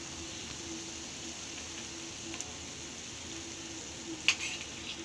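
Jalebis deep-frying in hot oil in a pan: a steady sizzle, with one sharp click about four seconds in.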